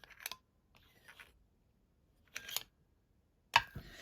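Metal sonic screwdriver replicas being handled: a few light clicks and rattles, then one sharp click near the end followed by a short scraping hiss.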